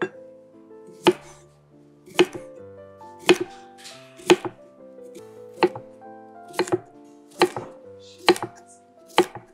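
Chef's knife chopping through a cucumber onto an end-grain wooden cutting board: a crisp knock on the wood about once a second, around ten strokes, coming slightly quicker near the end. Soft background music with held notes runs underneath.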